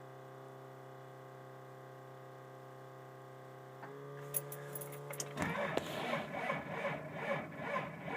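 A steady electrical hum, then from about five seconds in the starter cranks the frozen 1994 Dodge Ram 2500's engine in an uneven, labouring rhythm without it catching: a no-start at −30 °C without the block heater.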